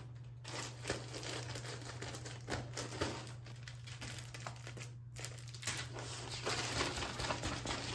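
Plastic packaging crinkling and rustling with scattered small clicks as a package is handled and opened, over a steady low hum.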